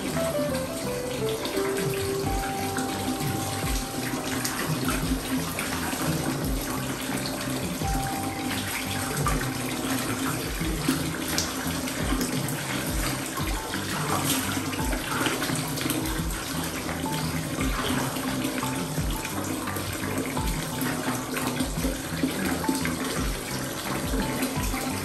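Water running steadily into a bath, over background music with a steady low beat about once a second.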